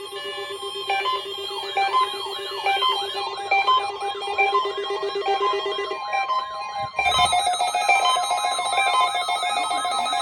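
NOAA Weather Radio test alarm sounding on several receivers at once: overlapping electronic alert tones, with warbling siren-like sweeps, repeating beeps and a steady high tone. A pulsing lower tone stops about six seconds in, followed by a brief thump, and more alarm tones then join in.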